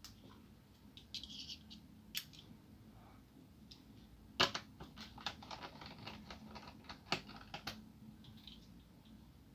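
Small sharp clicks and rattles of a screwdriver and tiny screws against a laptop's plastic bottom case, a few at first, then a quick run of clicks from about halfway in, the loudest at its start.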